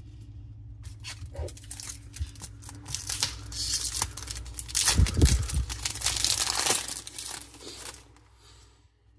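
Plastic wrapper of a Topps baseball card pack being torn open and crinkled, with crackles at first, then a dense stretch of crinkling with a dull bump about halfway, dying down near the end.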